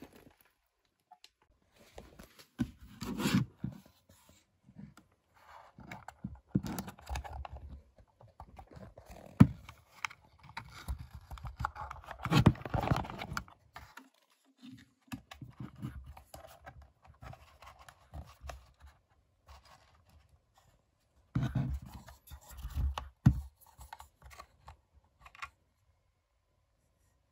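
Handling noise from unpacking drone gear: a nylon carrying bag and a plastic drone remote controller being picked up and moved about, with irregular rustling, scraping and light knocks in short bunches between quiet gaps. It falls silent a couple of seconds before the end.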